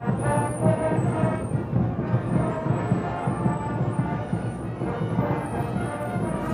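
Music with a steady low drum beat under held notes, starting suddenly.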